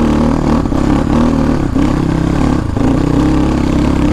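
Dirt bike engine running under load with the throttle held open, dipping briefly about once a second, as the bike is ridden through thick mud.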